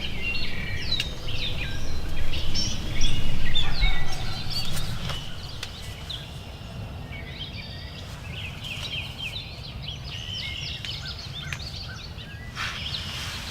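Outdoor birdsong: many short songbird chirps and sweeping calls over a steady low rumble of wind or background noise. The calls are loudest in the first few seconds and thinner after that.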